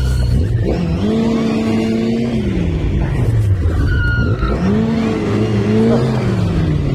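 Off-road vehicle engine revving under load, twice: it rises, holds about a second and a half and drops back, over a steady low rumble.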